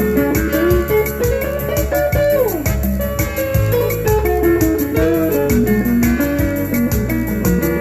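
Instrumental break in a song: a melody line over bass and a steady beat, with a downward pitch slide a little after two seconds in.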